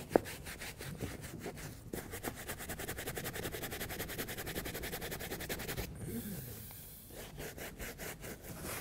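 Horsehair leather brush scrubbing leather cleaner into a leather motorcycle race suit, a fast run of back-and-forth bristle strokes with a short lull about six seconds in. One sharp click just after the start is the loudest sound.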